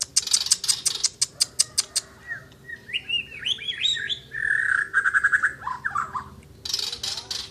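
White-rumped shama (murai Borneo) singing hard: a quick run of sharp clicks, then varied whistled phrases and a fast trill, ending in a short harsh rasp.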